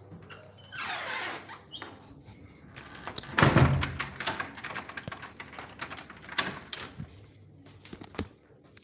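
Handling noise close to a phone microphone: a brushing swish, then a loud clatter about three and a half seconds in, followed by a run of clicks and knocks with a metallic jingle.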